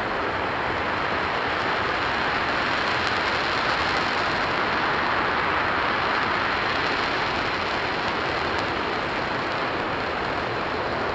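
RS-25 liquid-hydrogen/liquid-oxygen rocket engine firing in a static hot-fire test: a steady rushing roar that swells slightly in the middle.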